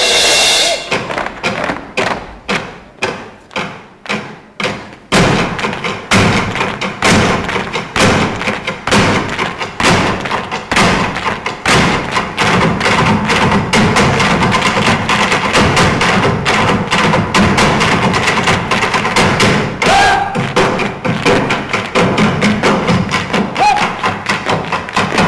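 Irish hard-shoe dancers' shoes striking the stage in an a cappella percussion number. A few separate stamps ring out in the first five seconds, then a fast, continuous rhythmic clatter of many feet follows.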